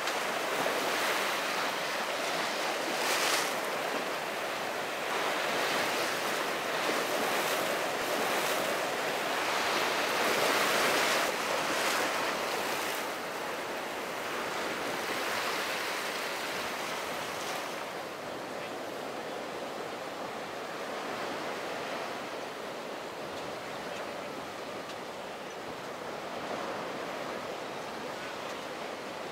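Ocean waves breaking and washing in rough inlet surf, with wind noise on the microphone; louder through the first half, then easing off.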